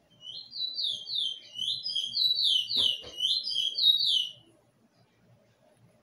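A black bullfinch, a seed finch kept as a song bird, sings a rapid run of loud whistled notes, each sliding down in pitch, for about four seconds before stopping. Two soft thumps come near the middle.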